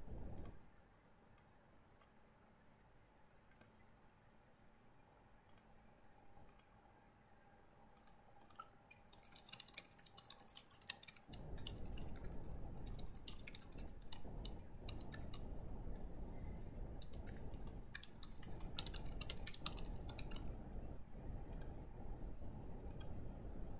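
Computer keyboard typing and mouse clicks: scattered single clicks in the first several seconds, then quick runs of keystrokes around ten seconds in and again near twenty seconds. A steady low background hiss comes up about eleven seconds in.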